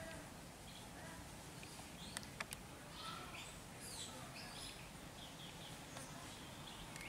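Faint outdoor ambience with a few short, high animal chirps and squeaks, mostly in the middle. A couple of sharp clicks come about two seconds in.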